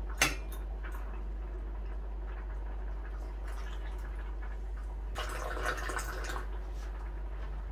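Moroccan mint tea poured from a silver teapot: a single sharp glass clink right at the start, a faint pour into the teapot around the middle, then a louder pour into a glass about five seconds in that lasts about a second, the tea frothing as it lands.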